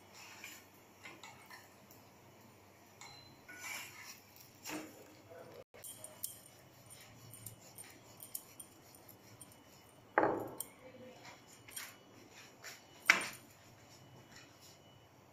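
Kitchen utensils clinking and knocking: metal tongs against a flat griddle (tawa), and plates and bowls handled on the counter, in scattered short knocks. Two louder knocks come in the last third.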